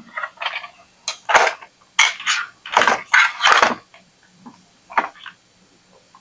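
Plastic clicks and clattering in irregular bursts as the casing and sliding lid of a label printer are worked open by hand.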